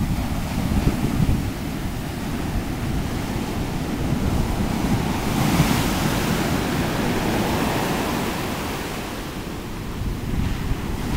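Heavy shore-break surf crashing and washing up the sand, with wind buffeting the microphone. About halfway through a wave breaks close in, and its hiss swells and then fades.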